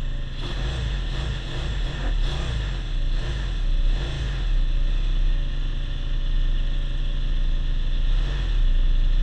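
Honda GB250's single-cylinder four-stroke engine idling steadily while the motorcycle waits at a stop.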